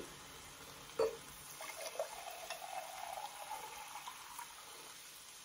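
Carbonated water poured from a bottle into a glass, with a sharp click about a second in before the pour.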